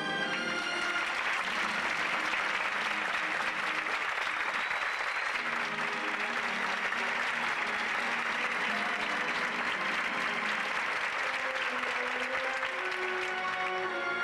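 Theatre audience applauding over music. The applause swells about half a second in, right after an overhead lift, and eases near the end as the music comes through again.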